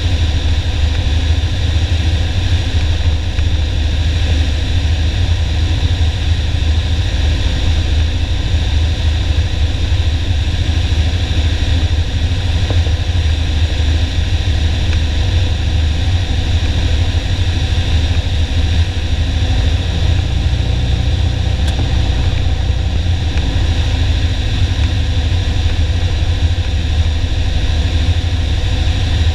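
Piper Warrior's four-cylinder Lycoming piston engine and propeller running steadily in flight, heard from inside the cockpit as a loud, even, low drone.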